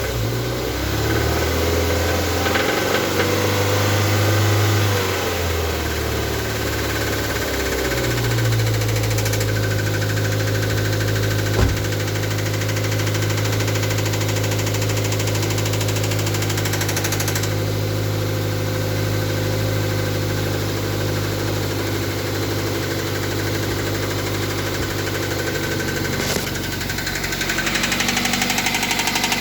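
Toyota MR2 Mk3's 1.8-litre four-cylinder engine running, its speed shifting over the first several seconds and then settling to a steady idle, with the knocking that the owner is recording as a fault. A single sharp click about 12 seconds in.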